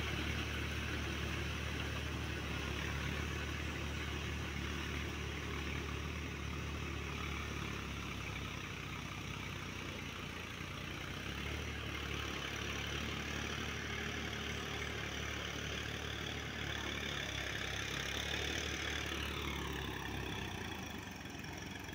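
Distant diesel tractor engine running steadily under load as it churns a flooded paddy field with a rear implement. A falling whine comes in near the end.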